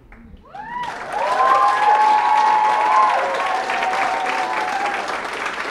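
Audience applauding, swelling in about a second in, with several voices whooping over the clapping for the first few seconds.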